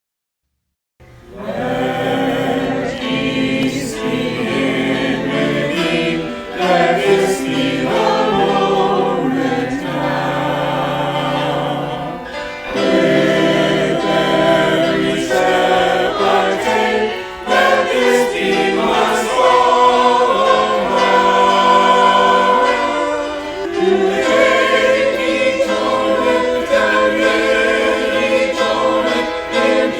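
A choir singing a hymn, starting about a second in after a moment of silence.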